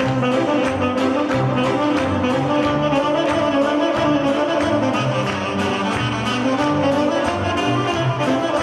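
Recorded folk dance music with brass instruments and a steady, quick beat, played over a loudspeaker.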